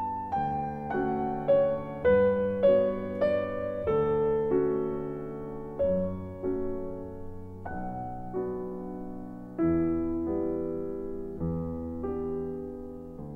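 Piano background music: single notes and chords struck one after another and left to ring, growing quieter near the end.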